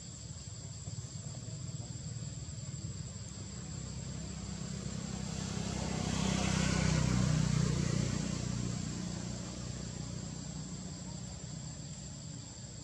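A motor vehicle passes by, swelling to its loudest about seven seconds in and then fading away, over a steady high-pitched insect drone.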